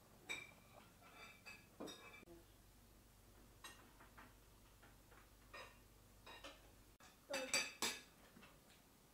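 Spoons and forks clinking and scraping against china plates and a serving platter while rice is served and eaten, in scattered light clinks, with a louder cluster of clinks near the end.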